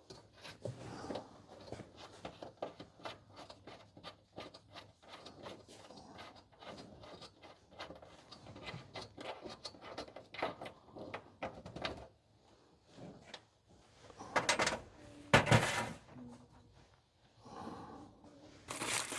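Pliers turning the retaining nut off a cabinet cam lock: a long run of small, irregular metal clicks and scrapes, then a couple of louder knocks and clatter of parts being handled about two-thirds of the way through.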